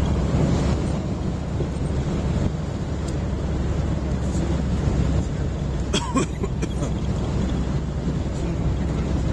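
Steady low rumble of a moving road vehicle, engine and road noise heard from inside the cabin, with a brief clatter about six seconds in.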